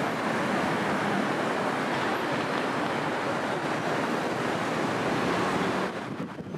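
Steady rushing noise of a busy city street, with a brief dip in level near the end.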